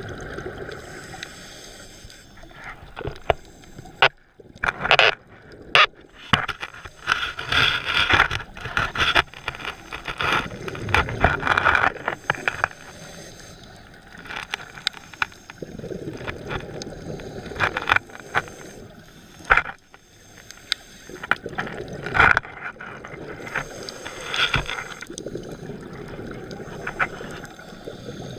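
Underwater sound of a scuba diver's breathing: exhaled bubbles gurgling and crackling in bursts, heaviest for several seconds around the middle and again about three-quarters through, with a quieter hiss between breaths.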